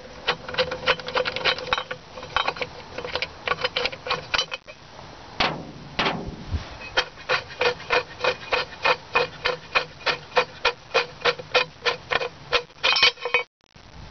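Socket ratchet clicking in quick, even strokes as the bolts holding a transmission mounting bracket are backed out, with a short break about four and a half seconds in and a quicker run of clicks near the end.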